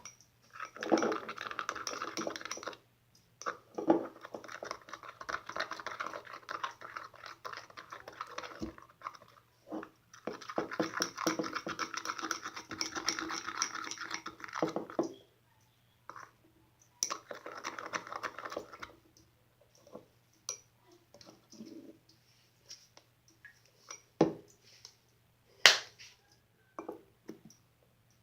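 Glossy slime being squished and pressed by hand, giving dense runs of small sticky clicks and pops, long stretches in the first half and shorter scattered ones later.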